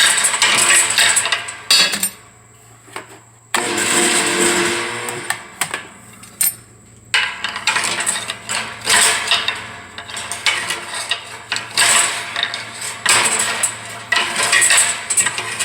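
Repeated metal clanks, knocks and scrapes as a pry bar is worked against a stalled air compressor pump to turn it over by hand, in uneven bursts with a short lull about two seconds in.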